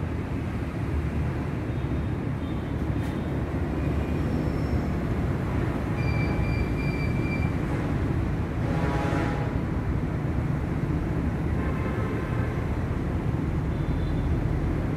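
Steady low rumble of running machinery, with a brief higher pitched whine about nine seconds in.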